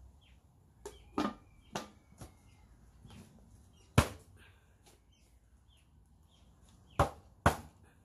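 Sharp knocks and clacks, seven in all: a few in the first couple of seconds, the loudest about four seconds in, and two close together near the end. Faint bird chirps come between them.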